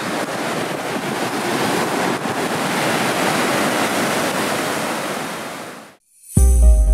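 Steady rushing roar of a large waterfall, mixed with wind buffeting the microphone, fading out about six seconds in. Music with a deep bass hit comes in just before the end.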